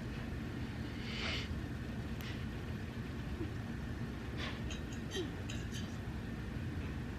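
A dog snuffling and licking close by: a couple of short breathy snuffles and a run of small wet clicks, over a steady low hum.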